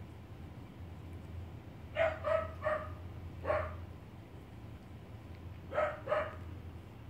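Puppies yipping at play: six short, high barks, four in quick succession about two seconds in and two more near the end.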